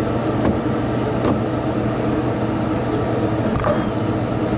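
Steady low mechanical hum of running machinery, with two faint light clicks about half a second and a second in.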